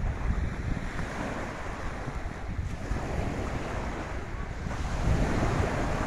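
Small sea waves breaking and washing onto the shore, with wind buffeting the microphone; the wash swells and grows louder about five seconds in.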